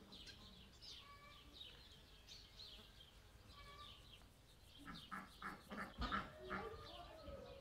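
Birds chirping and whistling with short, repeated calls. About five seconds in comes a run of louder, harsher calls from larger birds, likely domestic fowl.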